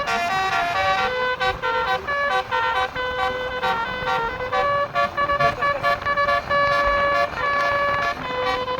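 Bus-mounted basuri telolet horn playing a tune: a quick run of stepped notes, a few per second, some held a little longer.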